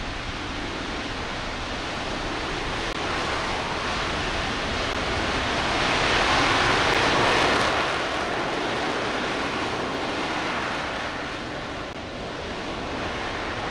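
RS-25 liquid-hydrogen/liquid-oxygen rocket engine firing steadily on a test stand, a continuous rushing roar of exhaust. It swells louder about six to eight seconds in, then eases back.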